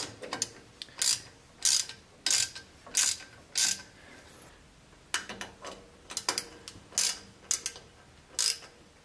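Hand socket ratchet clicking through repeated return strokes, about one every two thirds of a second, running a bolt into a small-block Chevy water pump. The strokes pause for about a second around four seconds in, then start again.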